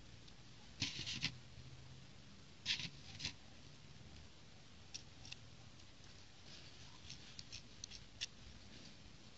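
Plastic building bricks clicking and snapping as small pieces are pressed onto a toy jeep and handled. The clicks come in short clusters, loudest about a second in and again about three seconds in, with lighter ticks later on.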